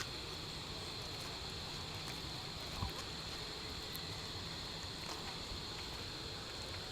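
Steady outdoor ambience: insects droning on one high, even pitch over a low rumbling hiss, with one faint knock about three seconds in.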